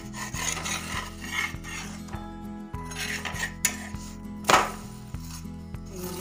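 Metal spatula scraping under a bajra bhakri on a griddle (tava), then the bhakri flipped over, with a sharp clatter of the spatula against the griddle about four and a half seconds in as the loudest sound.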